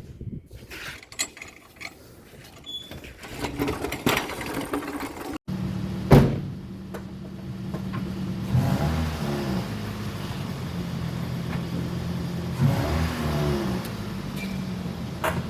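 A few seconds of scattered clicks and knocks, then a car engine running at idle, revved up briefly twice in the second half.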